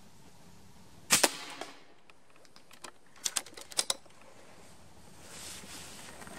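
A .25 calibre Reximex Throne PCP air rifle fires once, a sharp crack about a second in with a short ringing tail. Then comes a quick run of metallic clicks around three seconds in as the action is worked to cock the rifle and load the next pellet.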